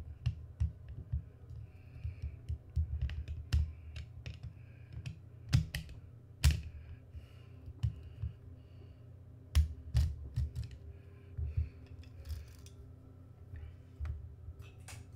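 Screwdriver work on an airsoft rifle's internals: irregular sharp clicks and low knocks as the screwdriver turns and metal and plastic parts are handled and set down on the desk.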